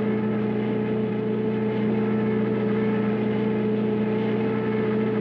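Cartoon race-car engine sound effect for the Mach 5 at speed: a steady drone held at one pitch.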